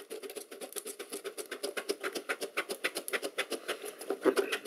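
Cardboard rubbing on cardboard as the inner tray of a small box is slid out of its sleeve by hand: a quick, even run of small scratchy clicks, a little louder near the end.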